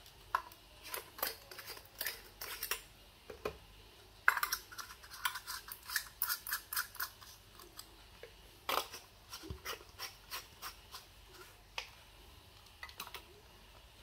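Irregular small clicks, taps and scrapes of hard plastic being handled: an LED bulb unscrewed from a plug-in socket adapter, set down, and screwed into a remote-control E27 lamp holder.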